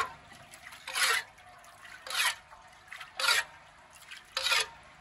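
Water splashing in short, regular strokes, four of them about a second apart.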